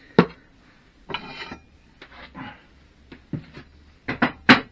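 Steel press plates and parts being handled at a hydraulic shop press: metal-on-metal clanks and scraping. There is a sharp knock near the start, a scrape about a second in, further clatter and a couple of light clicks, then three quick loud knocks near the end.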